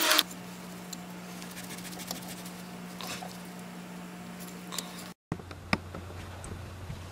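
Faint scattered clicks and rustling of a gloved hand working around the alternator in a car's engine bay, over a steady low hum. The sound cuts out briefly about five seconds in, and the hum comes back lower in pitch.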